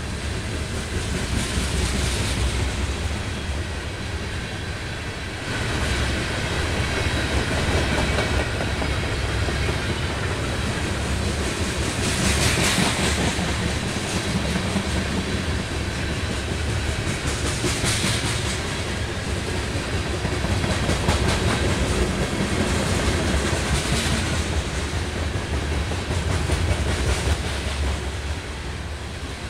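Freight train of covered hopper cars rolling past close by: a steady rumble of steel wheels on the rails with clickety-clack, swelling briefly a few times.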